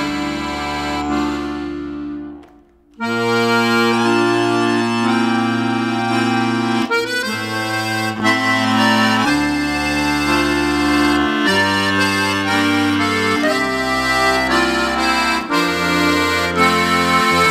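Background music led by an accordion, held chords over a bass line that changes every second or two. It dips almost to silence about two and a half seconds in, then starts again.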